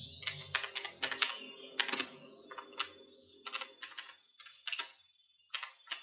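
Computer keyboard keys clicking as code is typed, in short irregular runs of keystrokes with brief pauses between them.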